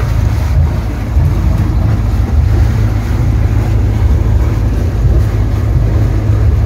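Fishing boat's engine idling, a steady low drone.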